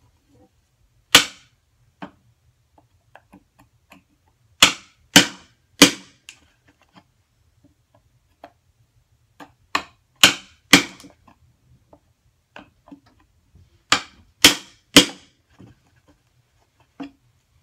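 Steel-headed hammer striking a mortise chisel as it chops a mortise into a wooden door stile: about ten sharp blows, mostly in quick runs of two or three about half a second apart, with a few seconds' pause and faint knocks between runs.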